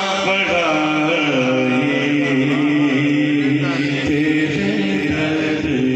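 Man singing a naat, an Urdu devotional poem, unaccompanied into a microphone, holding one long wavering note for several seconds.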